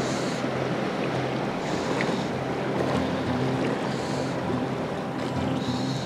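Shallow mountain creek running steadily over rocks and riffles, a continuous rushing hiss.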